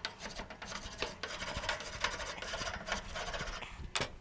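Hot gas grill grates being scrubbed with quick, repeated scraping strokes to clear burnt-on gunk. A sharp clank comes near the end.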